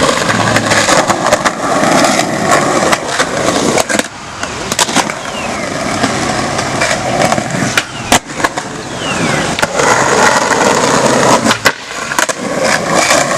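Skateboard wheels rolling over rough concrete in three runs of about four seconds each, with sharp clacks and knocks of the board throughout.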